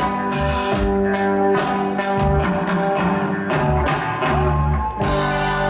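Live rock band playing the instrumental close of a song, with electric guitar, bass guitar and drum kit and the drums hitting steadily. About five seconds in the band lands on a held, ringing chord.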